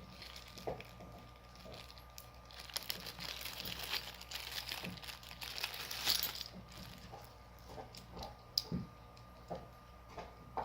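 Plastic packaging crinkling and rustling as small accessories are handled. The rustle is thickest from a few seconds in to past the middle, with a few light clicks and knocks before and after it.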